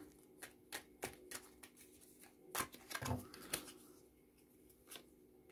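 Tarot cards being drawn from the deck and laid on the table: a scattered series of faint flicks and taps, the sharpest about two and a half seconds in.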